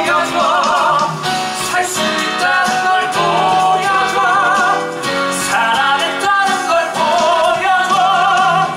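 A live musical-theatre number: a male voice sings long held notes with vibrato over a band accompaniment.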